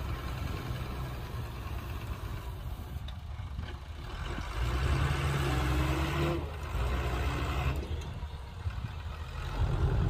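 Heavy diesel engine of earthmoving machinery running steadily, growing louder for a couple of seconds about halfway through and again near the end.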